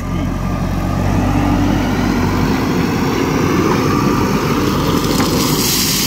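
JCB 4DX backhoe loader's diesel engine running steadily as the machine moves with a loaded front bucket. Near the end comes a rising hiss as gravel starts pouring out of the tipped front bucket.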